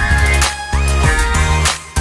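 Background music: an instrumental stretch of a Korean pop/R&B song with a heavy bass beat, sharp drum hits and sliding synth lines.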